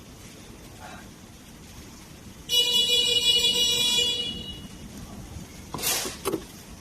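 An electric scooter's electronic horn or buzzer sounding one steady, high-pitched beep about a second and a half long, then fading. Near the end, two short rustling or scraping noises.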